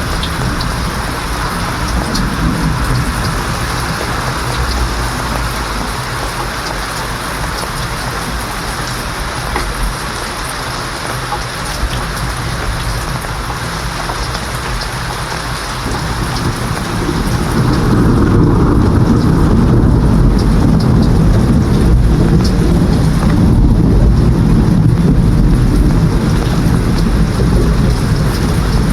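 Steady heavy rain hissing, with a deep rumble of thunder that swells up about halfway through and keeps rolling.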